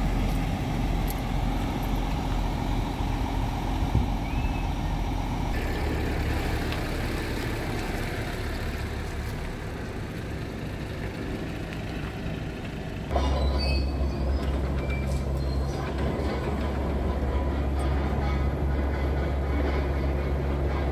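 Scania G tractor unit's diesel engine idling with a steady low drone. The sound jumps abruptly in level and tone twice, getting louder about two-thirds of the way through.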